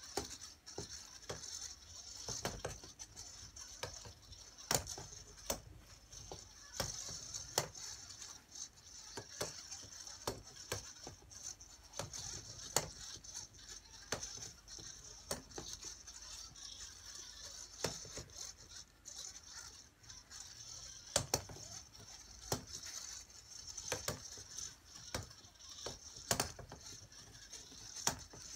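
Sphero robot balls rolling across a board and knocking against its wooden frame, giving irregular sharp clicks and knocks over a steady high hiss.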